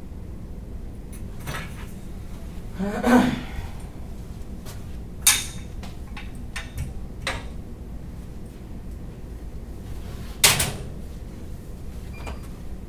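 Scattered knocks and clatters of aluminium extrusion bars and frame parts being handled and set down, with three louder hits about three, five and ten seconds in, over a steady low background hum.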